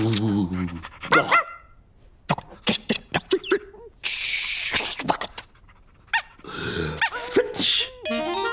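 Small cartoon dog's yaps and whimpers, short and wavering, with a run of clicks in the middle and a loud hiss about four seconds in. Music starts near the end.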